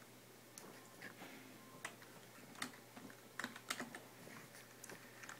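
Keys being pressed on a computer keyboard: faint, irregularly spaced clicks, with several in quick succession about three and a half seconds in.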